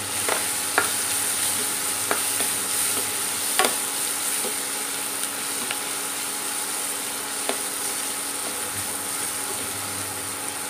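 Chopped onion sizzling in hot spiced oil in a stainless-steel pan while being sautéed, with a spatula stirring and knocking against the pan a handful of times.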